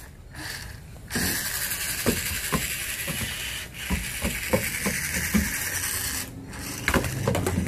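Electric motor and gearbox of a remote-controlled monster truck, whirring as it drives across wooden decking, with scattered knocks. The whir starts about a second in, stops briefly near six seconds and starts again.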